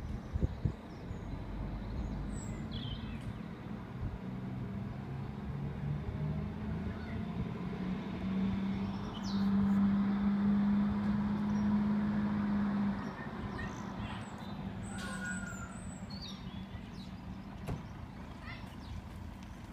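Heavy haulage truck's diesel engine working under the load of a locomotive on its trailer. The engine note climbs about eight seconds in, holds loud and steady for about four seconds, then drops back. Birds chirp faintly.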